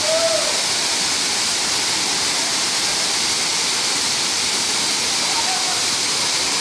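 Waterfall rushing: a steady, loud hiss of falling water, with two faint short pitched sounds, one right at the start and one near the end.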